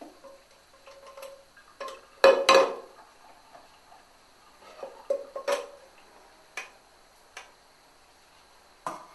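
Saucepan, wooden spoon and stainless-steel colander knocking and scraping at a kitchen sink: a string of separate clanks, the loudest two close together about two and a half seconds in.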